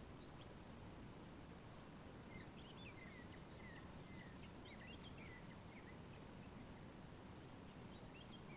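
Faint chirping of small birds: a cluster of short, quick up-and-down notes in the middle, over a low steady background hiss.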